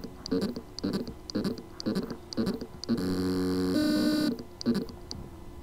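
Hard drive with loose spindle-motor contacts trying to spin up: a rhythmic pulsing about twice a second, broken by two short steady tones, then a faint whine falling in pitch near the end. It is the sign of a spindle motor that can spin but cannot reach full speed because of loose motor contacts on the PCB.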